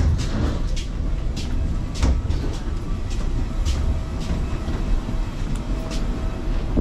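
Footsteps of passengers walking through a metal jet bridge, sharp clicks at a walking pace, over a loud low rumble.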